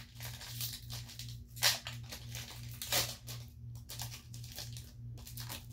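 A Pokémon card booster pack's foil wrapper being torn open and crinkled by hand, a run of irregular crackles and rips.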